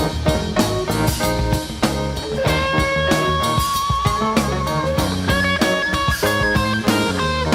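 Live rock band playing an instrumental jam: electric guitar over bass and drum kit, with a lead note held and wavering for about two seconds around the middle.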